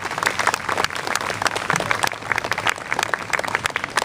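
A small audience applauding, many hands clapping in an irregular patter.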